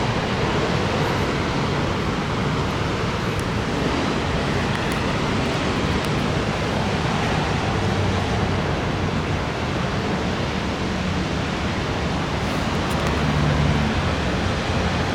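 Heavy thunderstorm rain pouring steadily, with gusty wind rumbling on the microphone.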